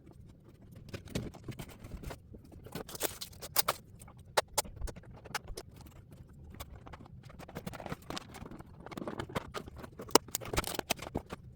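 Boxed plastic model horse being unpacked by hand: cardboard and plastic packaging rustling, with many scattered sharp clicks and taps.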